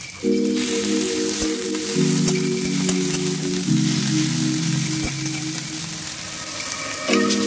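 Onions, chillies and tomato sizzling as they fry in oil in an iron wok, stirred with a slotted metal spatula that gives the odd light scrape. Background music with sustained chords that change every second or two plays over it.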